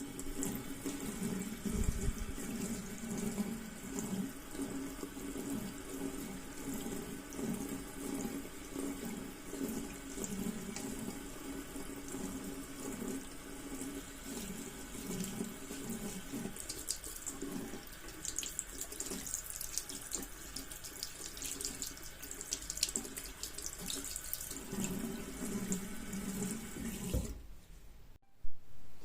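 Water running from a tap into a sink, splashing steadily and unevenly, then shut off suddenly near the end. A single sharp click follows just after.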